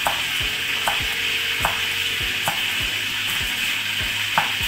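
Cleaver slicing fresh red chillies on a thick wooden chopping block, a sharp knock a little more often than once a second, over the steady hiss of rain.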